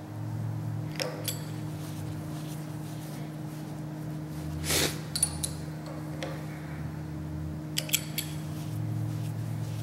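A few light metallic clicks and clinks with a short ring, and a brief scrape about halfway, as a hex key and steel parts of a tapered-roller-bearing live center are handled while its bearing preload nut is set. A steady low hum runs underneath.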